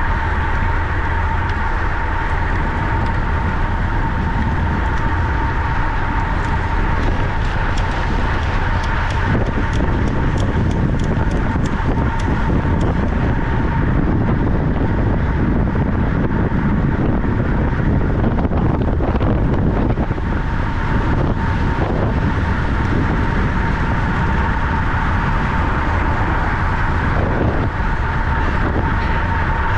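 Steady rushing noise with a constant high whine, typical of wind and rolling noise picked up while riding a track bicycle.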